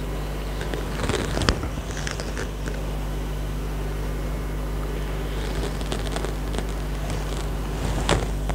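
Steady low hum of a small handheld electric device, with handling rustles and clicks about a second in and again over the last few seconds.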